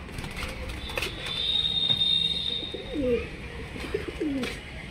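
Domestic pigeons cooing, with two short falling coos about three and four seconds in. A thin, steady high whistle sounds for about two seconds, starting about a second in.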